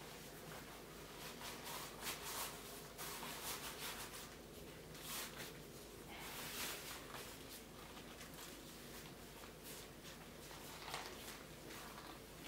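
Thin unlined leather gloves rubbing and rustling as they are pulled onto the hands and worked down over the fingers, in soft irregular strokes.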